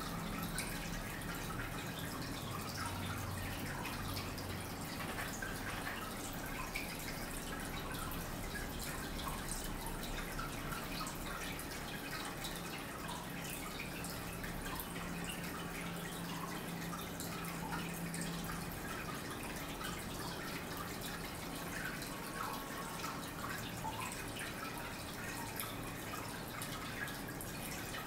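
Steady trickle of water with scattered small drips.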